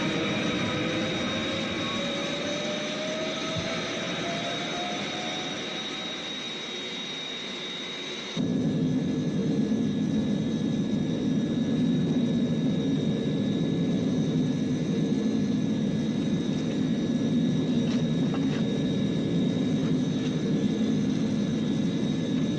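Film sound effects of jet aircraft engines running. A rushing jet whine carries a slowly rising tone for about eight seconds, then there is a sudden cut to a louder, deeper engine rumble that holds steady.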